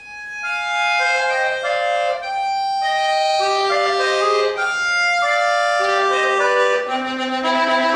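Accordion playing a melody of held reedy notes over chords.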